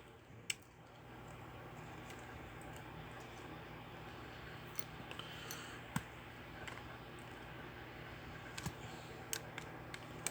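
Scattered small clicks and taps of hard plastic and metal as a small toy-car electric motor is handled and worked on, over a faint steady background hum.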